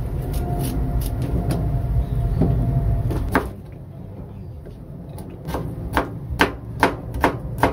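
A kitchen knife paring the skin off a potato over a low steady rumble, then a sharp knock about three and a half seconds in. After that the knife slices peeled potato on a cutting board, the blade knocking on the board two or three times a second.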